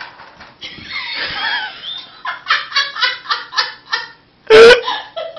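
A person laughing hard in quick rhythmic bursts of ha-ha-ha, breaking into one loud burst of laughter near the end.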